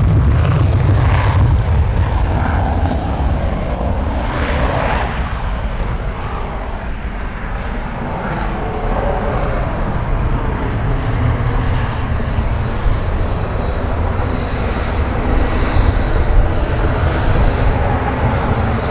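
Lockheed Martin F-35 Lightning II's single Pratt & Whitney F135 engine in full afterburner on take-off and steep climb: a loud, heavy rumble with crackling in the first few seconds, easing slightly as the jet climbs away.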